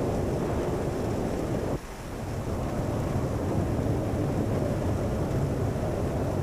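Strong wind buffeting the microphone: a steady, low rumbling roar that drops off suddenly about two seconds in and builds back within a second.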